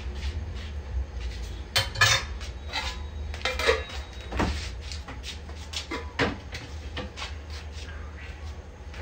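A metal spoon clinking and scraping against a pot and bowl, a scattering of sharp knocks, as cream is spooned into a pan of gravy. A low steady hum runs underneath.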